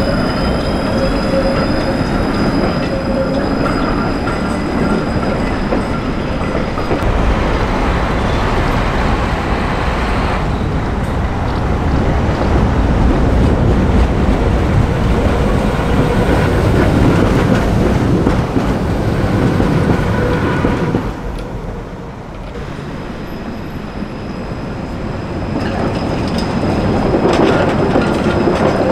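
Trams running on city rails: a Pesa Swing low-floor articulated tram passes with high, thin wheel-squeal tones over the first few seconds, followed by the steady rumble of trams on the track, an ex-Berlin Tatra among them. The sound drops briefly about two-thirds of the way through, then grows louder again near the end as another tram draws near.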